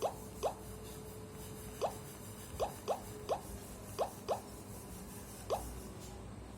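A Nokia feature phone's speaker playing a water-drop style ringtone: short plops, each rising quickly in pitch, about nine of them in an uneven rhythm.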